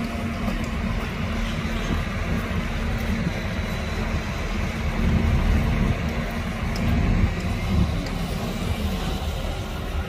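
Heavy diesel earthmoving machinery running steadily under load, a deep engine sound strongest in the low end.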